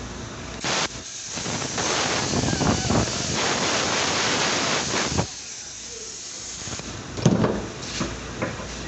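A long, even hiss of about four seconds, like a pressurised jet, after a short blip of the same just before it; a few short knocks follow near the end.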